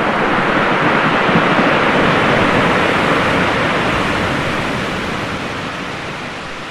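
Ocean waves crashing on the shore: a loud rushing wash that peaks in the first couple of seconds and then slowly fades away.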